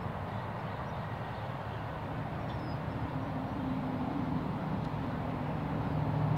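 Steady low engine hum in the background, growing a little louder near the end.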